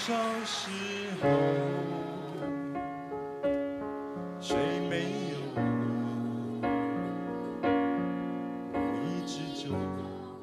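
Slow piano ballad: chords struck about once a second and left to ring, with a singing voice coming in briefly a few times over them.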